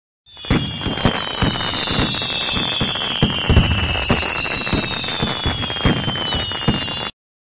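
Fireworks sound effect: a rapid string of bangs and crackles over a long whistle that slowly falls in pitch, cutting off suddenly near the end.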